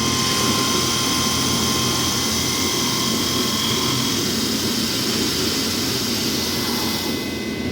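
Milling machine running steadily, its spindle giving a constant high whine over a steady mechanical rush while a part is milled.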